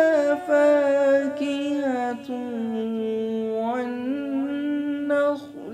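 A solo voice chanting Quran recitation in melodic tajweed style, drawing out the words 'fiha fakihatun' in long held notes. The pitch sinks to a long low note in the middle and rises again, with a brief pause for breath near the end.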